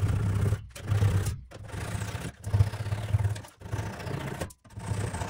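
Flush-cut hand saw cutting glued wooden dowel pegs flush with a dresser top, the blade rasping in repeated strokes about once a second with short pauses between them.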